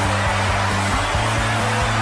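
NHL arena goal celebration: goal song music playing over a loud cheering crowd, with low steady tones underneath.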